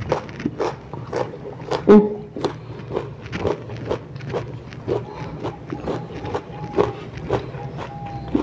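Close-up chewing of a slice of crisp, fresh ambarella (kedondong) fruit: a string of wet crunches, roughly two a second. One short hummed 'mm' about two seconds in.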